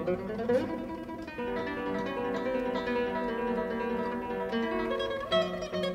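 Background music: a melody of picked notes on plucked string instruments, guitar-like, with chords beneath.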